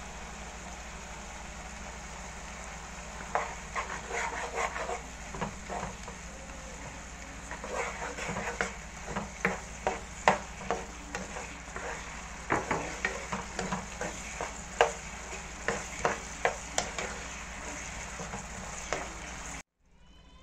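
Vegetables sizzling in sauce in a non-stick frying pan. From about three seconds in they are stirred with a spoon that knocks and scrapes against the pan in quick, uneven strokes. The sound cuts off suddenly near the end.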